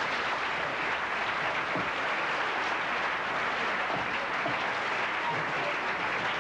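An audience applauding, a steady round of clapping.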